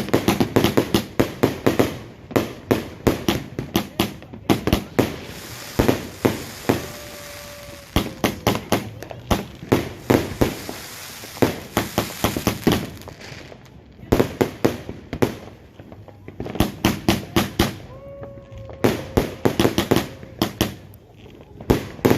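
A 150-shot consumer firework cake firing rapid volleys of sharp bangs, several a second, with a hissing crackle under some volleys and brief lulls between bursts.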